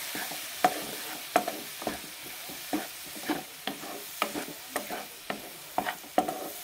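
Wooden spatula scraping and tapping in a non-stick wok as egg and chopped vegetables with soy sauce are stirred and fried, over a steady sizzle. The strokes come about one and a half to two times a second.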